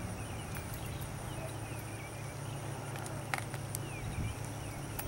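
Outdoor ambience: faint short bird chirps over a steady high insect drone and a low hum, with a couple of light clicks a little past the middle.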